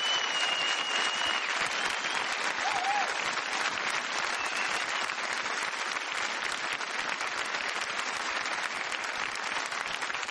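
Large studio audience applauding steadily, a dense crackle of many hands clapping.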